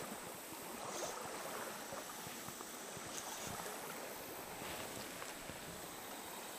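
Steady hiss of a shallow creek's flowing water, with a few faint ticks.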